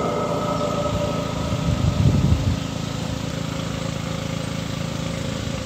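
Small-boat outboard motor idling steadily, with a brief louder low rumble about two seconds in.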